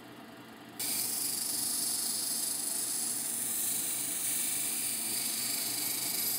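Tiger eye stone on a dop stick ground against a spinning, water-wetted diamond wheel of a cabbing machine: a steady high grinding hiss that starts suddenly about a second in and stops suddenly at the end.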